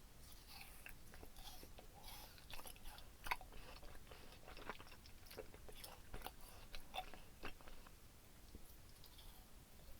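Close-miked mouth sounds of chewing and biting gummy candy, with irregular wet clicks and small crunches, the loudest about three seconds in.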